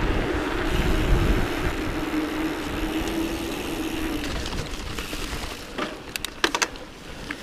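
YT Jeffsy 29 AL mountain bike rolling fast downhill, with wind rushing over the handlebar camera and the knobbly tyres humming steadily on the tarmac. The hum stops about four seconds in as the bike runs onto grass. A few sharp rattling clicks come about six seconds in.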